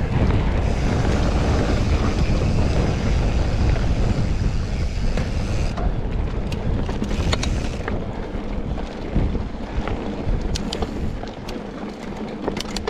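Mountain bike riding along a pebbly singletrack: wind noise on the GoPro Hero 8's microphone and tyres rolling over loose pebbles, easing off about six seconds in, followed by scattered sharp clicks and rattles.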